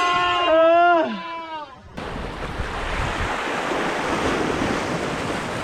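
A short, loud pitched sound effect, held steady and then sliding down in pitch until it stops about a second in. Then sea surf washing over shoreline rocks, with wind on the microphone.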